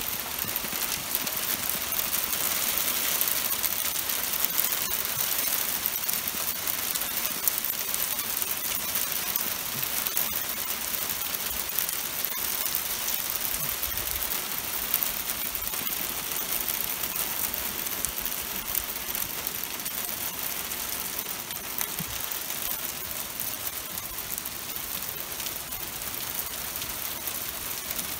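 Steady dense patter of rain mixed with small ice pellets falling onto a car's metal hood and the ground around it.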